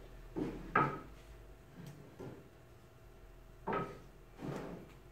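Wooden boards knocking against each other and the tabletop as they are laid in place and positioned: about half a dozen separate knocks, the loudest about a second in.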